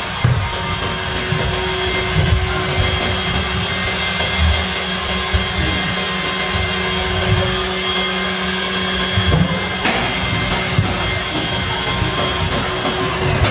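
Robot vacuum cleaner running: a steady whirring motor-and-fan noise with a few constant whine tones, and a couple of brief knocks.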